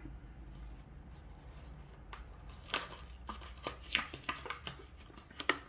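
A Hot Wheels blister pack being opened by hand: a run of sharp crinkles, clicks and tearing of plastic and card, starting about two seconds in.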